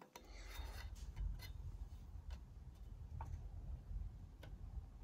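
Faint rubbing with a few scattered light clicks as a hand shifts a black metal carriage plate along the steel rail of a DIY CNC plasma table.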